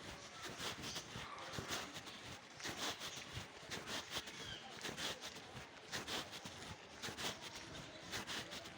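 A series of irregular short knocks, about one to three a second, over a steady background hiss.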